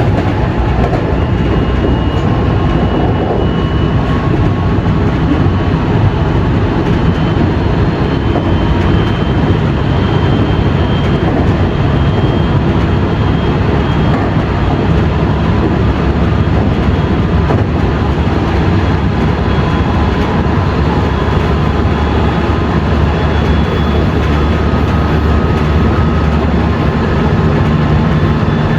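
JR West 207 series electric train running, heard from a motor car with a Mitsubishi power-transistor VVVF inverter. A steady heavy rumble of wheels and traction motors carries a faint whine that slowly rises in pitch.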